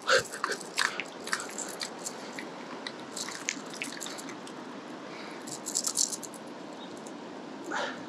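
Mountain stream water rushing steadily, with scattered clusters of short sharp clicks and ticks near the start, around three seconds in and around six seconds in.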